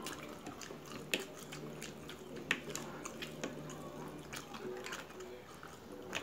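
Close-up eating sounds: wet chewing, lip smacks and small irregular clicks as two people eat sauce-covered fried food off skewers.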